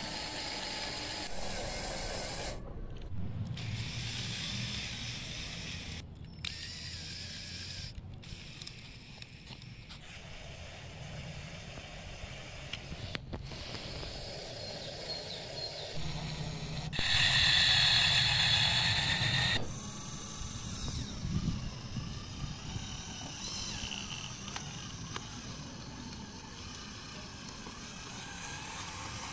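LEGO Technic electric motors and gear trains whirring and clicking as the RC off-road car drives, in several short cut-together stretches. Just past the middle a louder, higher steady whine runs for about two and a half seconds.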